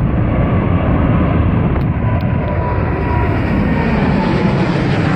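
Boeing 787 Dreamliner's twin GEnx jet engines at climb thrust as the airliner passes overhead just after takeoff: a loud, steady roar with a thin high whine running through it, growing brighter as the jet comes closer.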